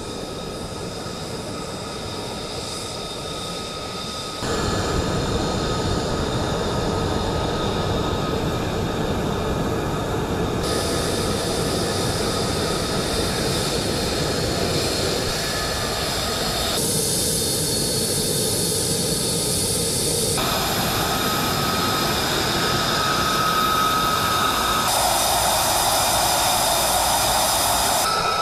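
F-35A fighter's jet engine running as it taxis: a steady rushing noise with high, steady whining tones. It gets louder about four and a half seconds in, and its tone shifts abruptly several more times.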